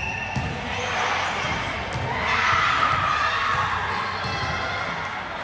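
A volleyball bouncing on a hardwood gym floor, with players' voices echoing in a large sports hall; the voices swell about two seconds in.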